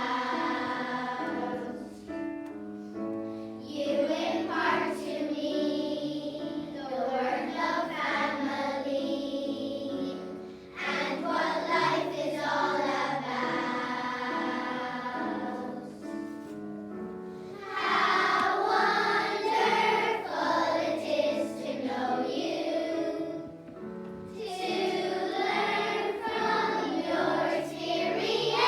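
A choir of young girls singing a song together, in phrases with short breaths between them.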